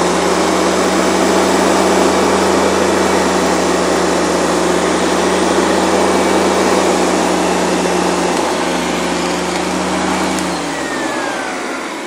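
Hoover Convertible upright vacuum cleaner running on its high speed setting, with a steady motor hum and a rush of air. About ten and a half seconds in, the motor slows and the sound drops lower and quieter.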